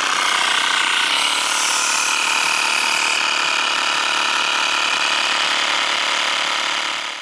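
Cheap 12 V piston air compressor, fitted with an extra cooling fan, running steadily while it pumps up a tyre through a hose and chuck. A hiss of air joins it for about two seconds, about a second in. The sound cuts off suddenly near the end.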